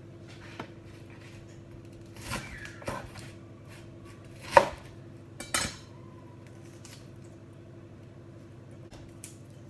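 Scattered knocks and clatters of kitchen utensils and dishes on a counter during food preparation, about half a dozen, the loudest a little past halfway, over a steady low hum.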